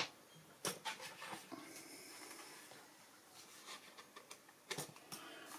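Faint handling noise: a few light clicks and taps, about a second in and again near the end, over a low hiss.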